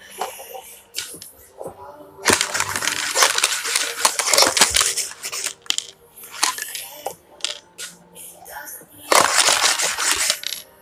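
Dice rattling and clattering inside a clear plastic cup swirled across a tabletop, in two long spells of dense rattling with a few single clicks between.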